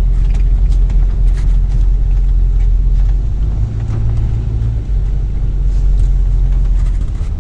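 A vehicle engine running steadily, heard as a constant low rumble.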